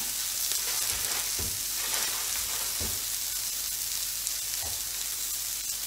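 Beef steak and a mushroom-and-onion garnish frying in two pans on a stovetop: a steady sizzle, with a few faint knocks.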